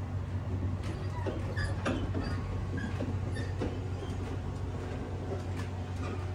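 Cassiopeia sleeper train running, heard from inside a car: a steady low rumble with scattered light clicks and rattles.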